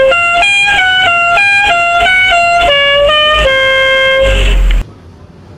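A loud tune in a reedy, horn-like tone: about a dozen short notes stepping up and down, ending on one longer held note that cuts off abruptly.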